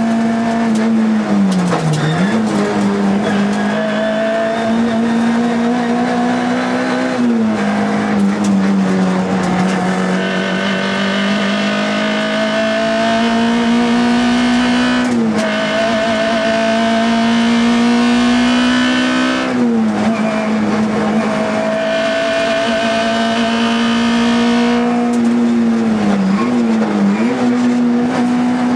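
Škoda Felicia Kit Car rally car's four-cylinder engine heard from inside the cabin, held high in the revs at full stage pace. The engine note dips briefly about five times, at lifts or gear changes, while a higher whine climbs slowly between them.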